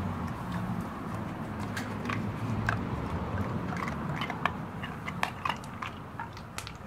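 Bluetick coonhound up close, making irregular wet mouth smacks and small clicks.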